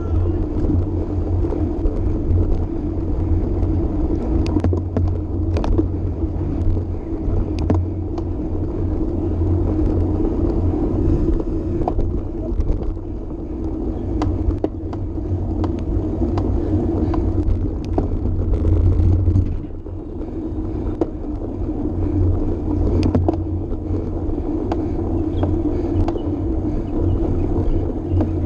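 Wind rushing over the microphone of a camera mounted on a road bike ridden at speed, with tyre noise from the track surface: a steady low rumble, with scattered short clicks and knocks.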